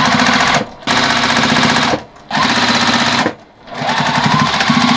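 Electric sewing machine stitching through layers of heavy cotton coat fabric, attaching a waistband, in four quick runs with brief stops between them; the last run starts slowly and builds to full speed.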